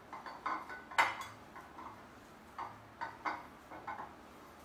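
Hand kneading a soft, mashed rice mixture in a glass dish, with irregular knocks and clinks against the glass, the loudest about a second in.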